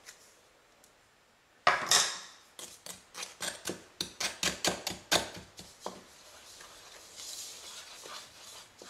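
A knock, then a wooden spoon stirring flour and sugar in a plastic mixing bowl: a quick run of taps and clicks against the bowl, about five a second, easing into a soft gritty rustle of the dry mix near the end.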